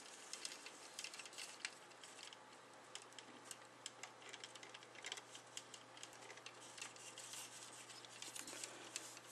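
Faint, scattered clicks and taps of the plastic armor parts of a 1/100 Bandai Duel Gundam Assault Shroud model kit, handled and pressed into place by hand.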